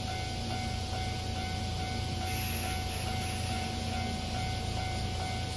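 Japanese railway level crossing alarm ringing as a steady electronic tone, over the low steady hum of a Kintetsu electric train pulling out of the station. A short high hiss comes about two seconds in.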